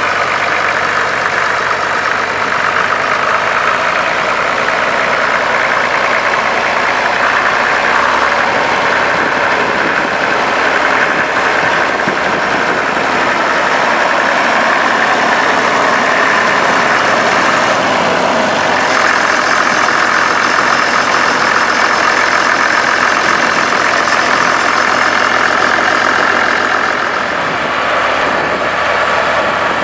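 Case Comfort King tractor engine running steadily at low speed as the tractor is driven slowly.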